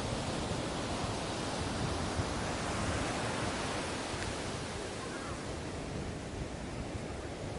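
Ocean surf washing on a beach: a steady rushing hiss of breaking waves that eases off in the second half.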